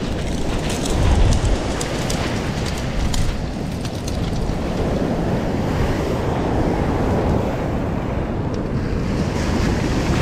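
Waves breaking and washing up a pebble beach, with wind rumbling on the microphone and a few sharp clicks.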